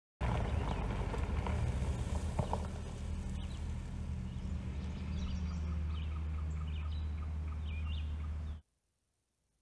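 An SUV's engine running as it rolls slowly up to a garage, a steady low rumble, with birds chirping over it in the second half. The sound cuts off suddenly near the end.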